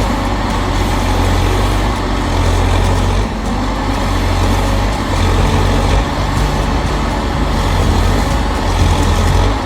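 Heavy diesel engine of a forestry harvester running steadily under load, a loud, even low drone with machine noise over it.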